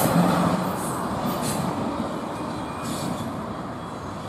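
CSX double-stack intermodal well cars rolling past on the rails, a steady rumbling clatter with a few brief high wheel squeals, fading as the train moves away.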